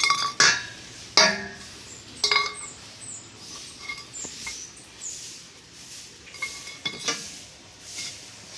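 Galvanized iron water pipes clinking and ringing against each other as they are handled and set down on concrete: several sharp metal clinks in the first two and a half seconds, then lighter knocks.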